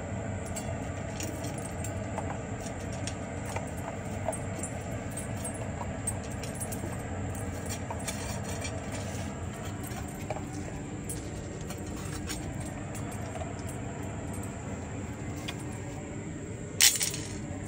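Golden retriever eating from a stainless steel bowl, his food and tags clinking against the metal in small, irregular clicks over a steady background hum. A single sharp clatter comes near the end.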